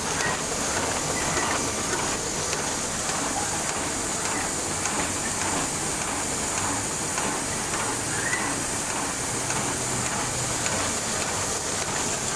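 Heidelberg Speedmaster SM52 sheet-fed offset printing press running steadily on a production job, a constant mechanical whir and hiss with a faint regular beat.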